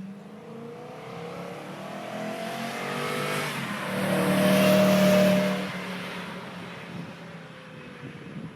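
BMW E9X M3's V8 exhaust as the car accelerates and drives past: the engine note rises in pitch, is loudest about five seconds in, then fades with a falling pitch as the car moves away.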